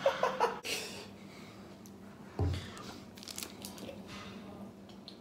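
Packaging being crinkled and torn open in a few short bursts, with a single low thump about two and a half seconds in.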